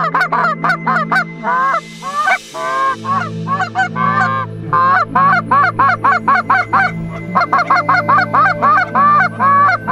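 Hand-blown Canada goose call sounding a fast, rhythmic run of honks and clucks, about four notes a second, each note breaking sharply upward in pitch.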